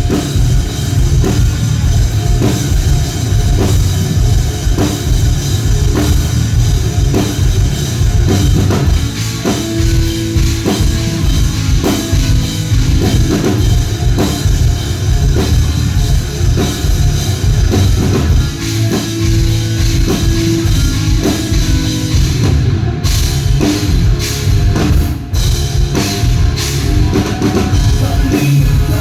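Rock band playing an instrumental passage, with a loud, driving drum kit to the fore.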